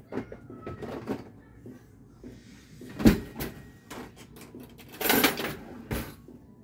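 Kitchen handling sounds: sharp knocks and clunks at the start, about three seconds in and near the end, with a brief rushing noise about five seconds in.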